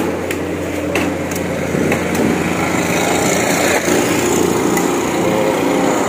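A small engine running steadily, with a few light clicks over it.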